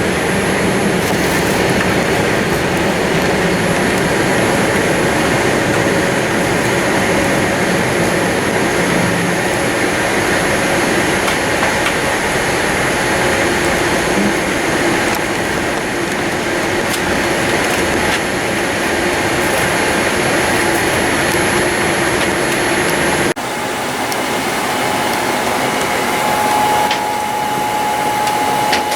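Steady cabin noise inside a Boeing 787-8 Dreamliner: the engines and airflow running as an even rumble and hiss. About 23 seconds in it cuts to a quieter steady hum, with a faint high tone joining a few seconds later.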